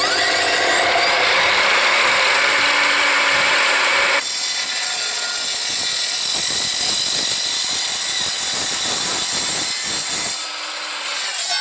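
Evolution R255SMS 10-inch sliding mitre saw's multi-purpose blade cutting through heavy steel box section: a loud, continuous harsh grinding. The sound changes about four seconds in and drops to a quieter level near the end, as the cut finishes and the blade runs free.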